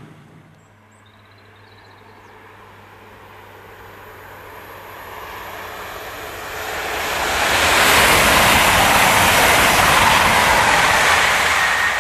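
Diesel passenger train approaching and passing at speed: a wide rushing noise that builds steadily over several seconds, is loudest from about eight to eleven seconds in, then starts to fade. A few faint bird chirps about a second in.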